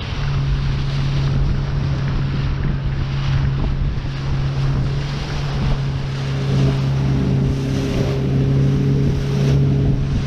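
A lobster boat's engine running steadily at cruising speed, with water rushing past the hull and wind buffeting the microphone.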